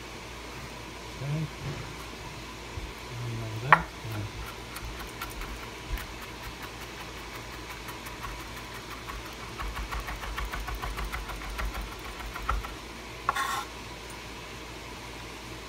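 Chef's knife mincing peeled garlic cloves on a bamboo cutting board: a rapid run of knife taps on the wood, with one sharper knock a few seconds in. Near the end comes a brief scrape as the minced garlic is gathered on the board.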